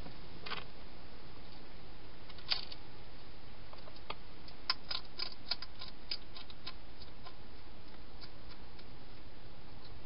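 A wild hedgehog crunching dry food inside a plastic feeding box: scattered sharp clicks, with a quick run of them about halfway through, over a steady hiss.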